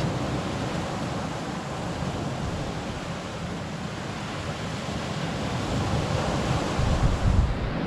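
Surf breaking and washing up a pebble beach in a swell, with wind rumbling on the microphone; a louder surge comes near the end.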